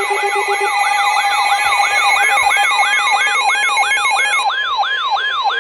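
Several electronic siren and alarm tones sounding together: a fast siren yelp sweeping up and down about three times a second, over a warbling two-tone alarm that stops about three-quarters of the way through and a steady tone.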